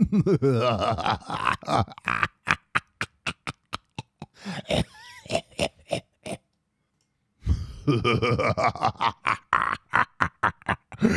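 A man's exaggerated, guttural evil clown laugh: two laughing fits of rapid "ha-ha-ha" pulses, about four a second, separated by a pause of about a second a little past halfway.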